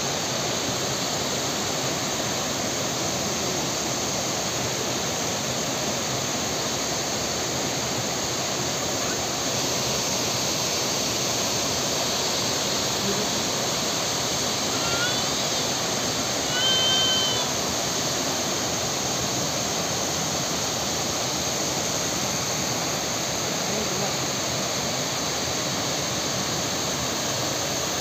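Corbett Waterfall pouring steadily, an even rushing noise of falling water, with a brief high-pitched call about halfway through.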